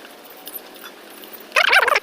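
A single short animal call, loud and about half a second long, near the end, over low background noise.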